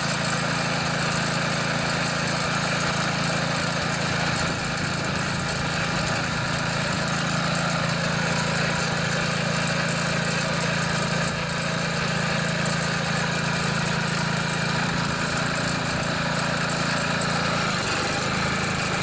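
MTD 139cc OHV single-cylinder engine on a Yard Machines front-tine tiller, running steadily after its carburetor jets and fuel system were cleaned. Its note shifts slightly near the end.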